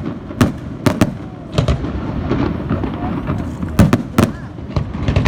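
Fireworks going off: about six sharp bangs at irregular intervals, the loudest two near the end, over a steady background murmur.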